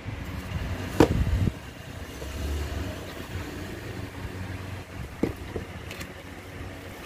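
Cardboard parcel set down on a wooden floor with a knock about a second in, then hands handling and rubbing the box, with a couple of light taps later on. A low rumble runs underneath.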